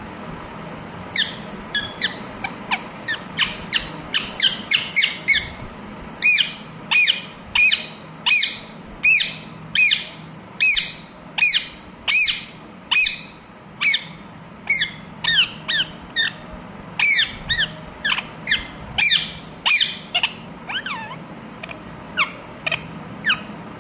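Ringneck parrot giving a long series of short, sharp, shrill squawks, about one to two a second, thinning out near the end.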